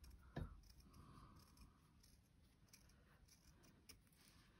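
Faint snips of small scissors cutting felt, with a soft knock about half a second in.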